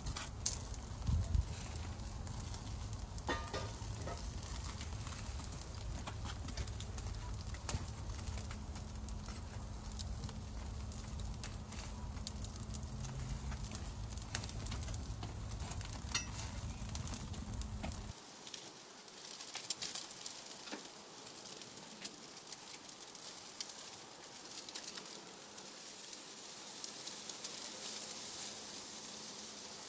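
Prime ribeye steak sizzling on a grill over oak embers, a steady hiss with small crackles and pops. A little past halfway the sound changes abruptly to a thinner, higher hiss without the low rumble.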